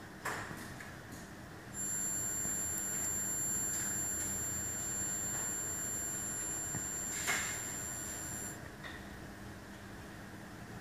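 Megger DLRO 200 low-resistance ohmmeter running a test at about 150 amps: a click, then a steady high-pitched electronic whine for about seven seconds, with another click near its end, cutting off as the measurement completes.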